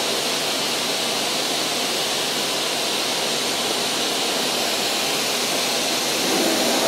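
Steady rushing noise of running machinery around a CNC router, even and without a distinct tone or rhythm, growing a little louder near the end.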